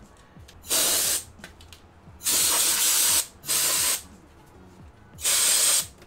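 Can of compressed air blown in four short bursts, each a loud hiss of half a second to a second, at a laptop's bottom cover and vent grille to blow the dust out of it.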